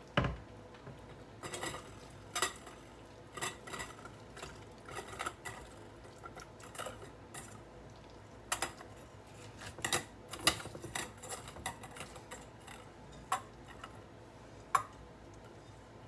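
Salted red onion slices being packed by hand into a glass mason jar: irregular soft knocks and clinks of onions and fingers against the glass, with one louder knock just after the start.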